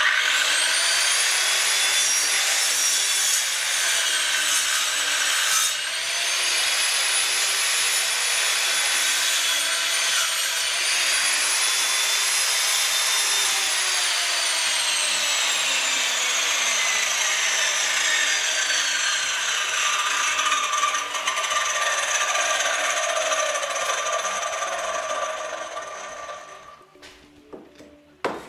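Angle grinder cutting into a brick wall: a loud, steady whine that starts suddenly, dips in pitch twice as the disc is pressed into the brick, then falls slowly in pitch through the second half and stops a couple of seconds before the end.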